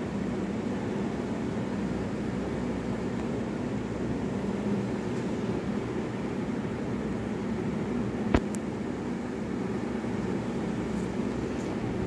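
Steady low mechanical hum, of the kind a room fan or air conditioner makes, with a single sharp click about eight seconds in.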